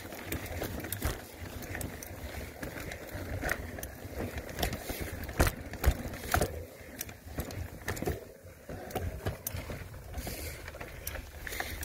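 Mountain bike rolling over bumpy sandstone slickrock, heard from the handlebars: a steady rumble from the tyres on the rock, with frequent clicks and knocks as the bike rattles over the bumps.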